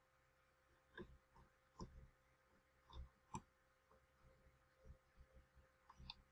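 Near silence broken by a dozen or so faint, scattered clicks of a computer mouse.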